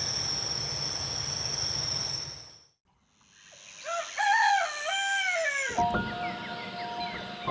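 Insects shrilling steadily in a jungle garden, fading out about two and a half seconds in. Then a rooster crows once, a long call of about two seconds that rises and falls. Steady held tones follow near the end.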